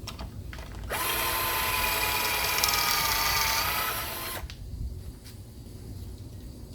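Power drill running a stepped pocket-hole bit through a Kreg jig into a 3/4-inch board, boring a pocket hole. The drill starts about a second in, runs as a steady whine with a slight dip in pitch partway through as it cuts, and stops after about three and a half seconds.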